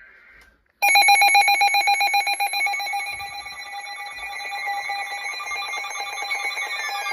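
Electronic weather-radio alert alarm going off: a loud, rapidly pulsing multi-tone alarm that starts abruptly about a second in, with falling tones sliding in near the end. It comes just ahead of a new severe thunderstorm warning.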